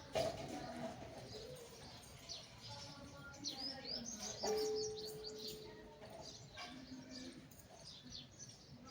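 Small birds chirping, with a quick run of high chirps about halfway through.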